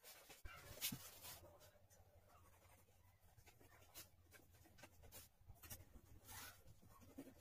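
Near silence with faint, scattered scrapes and clicks of hands handling plastic tile-leveling clips and screwing their caps on, over a faint steady low hum.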